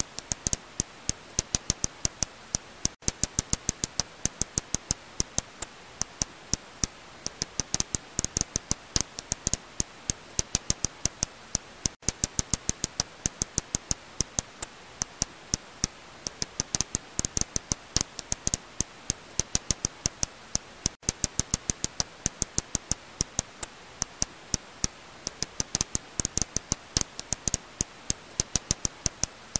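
Serotine bat echolocation calls heard as rapid runs of sharp clicks, several a second, over a steady hiss.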